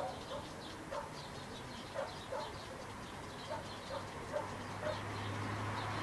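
A dog barking repeatedly, about nine short barks at an uneven pace. A low hum grows near the end.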